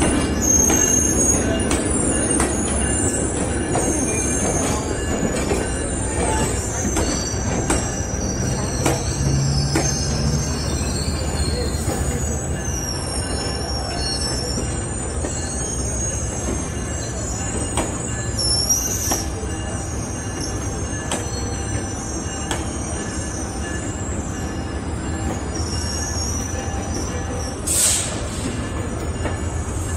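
Metrolink bilevel commuter train rolling slowly along the tracks, its steel wheels squealing on the rails in high, wavering tones over a steady low rumble. A short hiss sounds near the end.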